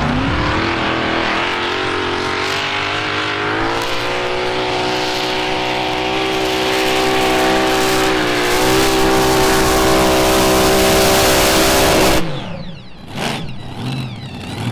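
Mini modified pulling tractor's supercharged engine at full throttle during a pull. The revs climb at the start and hold high with a brief dip about two thirds through, then the engine cuts off abruptly near the end as the pull finishes.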